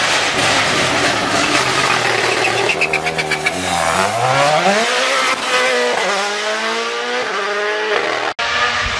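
Toyota GR Yaris Rally1's turbocharged 1.6-litre four-cylinder engine revving hard as the rally car comes past at speed. There is a burst of crackles about three seconds in, then the revs climb steeply and climb again several times in quick succession. The sound cuts off abruptly near the end.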